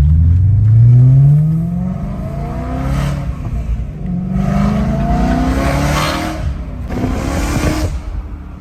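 BMW E92 engine accelerating hard, its pitch climbing in about four pulls and dropping back between them as the gears change, echoing loudly.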